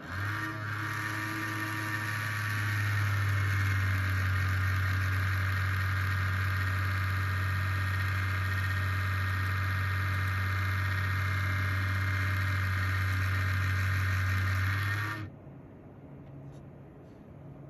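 Brand-new Corsair QX120 120 mm PC case fan running with a grinding noise: a low hum under a rough, buzzing whine. It builds over the first couple of seconds, holds steady, and cuts off suddenly near the end.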